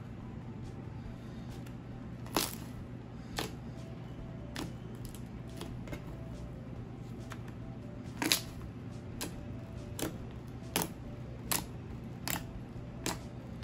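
Fluffy shaving-foam slime being stretched and then pressed and poked with the fingers on a tabletop, giving short, sharp pops and clicks as air pockets in it burst, about one a second in the second half. A steady low hum runs underneath.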